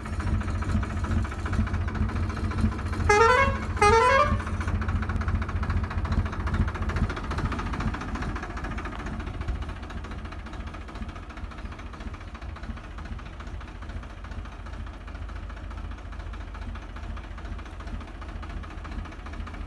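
Farmtrac 60 tractor's diesel engine running, louder for the first several seconds and then settling to a steady idle. About three seconds in, two short rising tones sound one right after the other.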